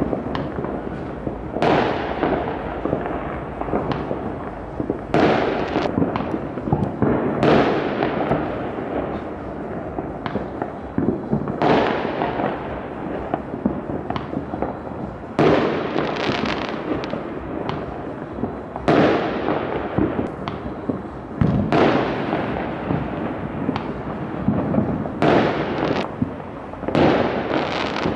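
Fireworks and firecrackers going off all over a city: a constant bed of distant bangs and crackling, with louder bangs every few seconds, each trailing off in an echo.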